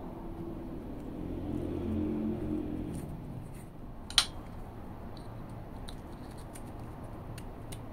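Small clicks and rustles of plastic wiring-harness connectors being handled at a motorcycle's regulator–rectifier plug, with one sharp click about four seconds in as a connector snaps. A low hum swells and fades over the first three seconds.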